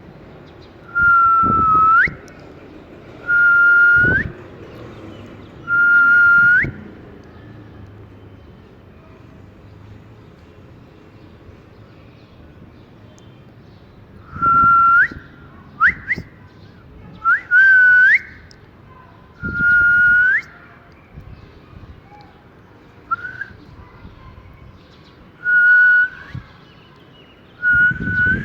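Repeated whistled notes: each a steady tone about a second long that flicks sharply upward at the end. Three come in the first seven seconds, then after a long pause a run of similar whistles, some cut short to quick upward chirps.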